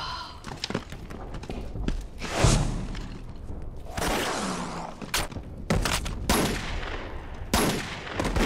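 Battle gunfire: volleys of rifle and machine-gun shots, with a loud explosion about two and a half seconds in and scattered sharp shots after it.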